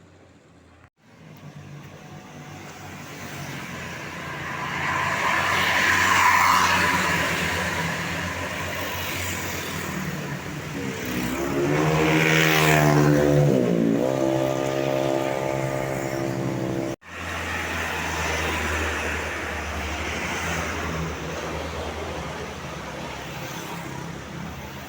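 Tour buses passing on an uphill climb. Engine and road noise swells as a bus goes by close. Midway a pitched, many-toned sound slides down and back up, then holds steady. It breaks off abruptly just past the middle, and another bus's noise rises and fades.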